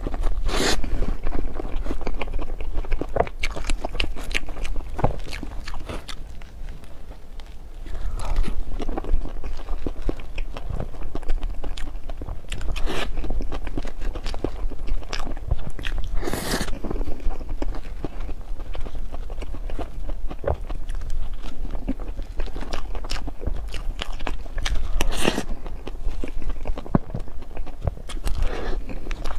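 Close-miked eating: a person chewing and biting into dessert, with irregular wet clicks and crackles and a louder bite every few seconds.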